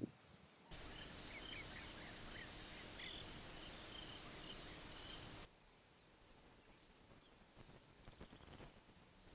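Faint outdoor bush ambience: a steady hiss with scattered short, high bird chirps. About halfway through it changes abruptly to a quieter background with a few brief, higher chirps.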